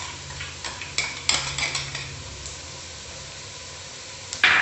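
A spoon clicking and clinking against a granite-coated frying pan as spice powder is tipped in: several light clicks in the first two seconds, then a louder clatter near the end.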